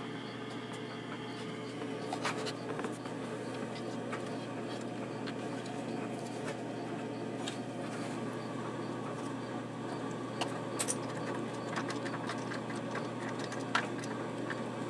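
Old engine oil draining from the drain-plug hole of a 1984 Yamaha Riva 180 scooter's engine into a drain pan: a steady trickle with scattered small drips and ticks, over a constant low hum.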